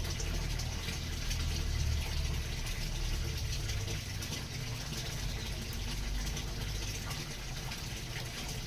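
Steady rush of splashing water with a low rumble underneath, the rumble easing a little after about four seconds.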